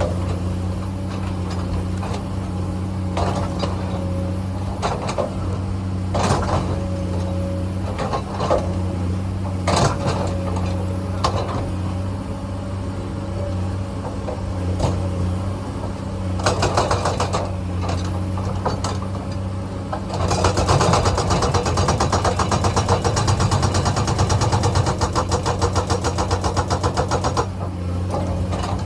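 Komatsu excavator's diesel engine running steadily under work, with scattered sharp knocks. About two-thirds of the way in comes a fast, loud rattling clatter lasting several seconds.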